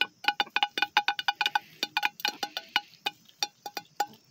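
Several Buff Orpington hens pecking food off a plate, their beaks striking it in rapid, irregular taps, several a second, each tap giving a short ringing ping.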